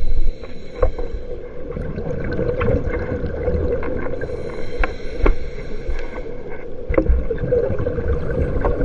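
Underwater sound picked up by a camera in its housing on a scuba dive: a steady drone under repeated low rumbles of a diver's exhaled regulator bubbles, with scattered sharp clicks.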